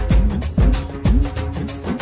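Background music with a steady beat: deep bass drum hits that drop in pitch, about two a second, with bright hi-hat strokes between them.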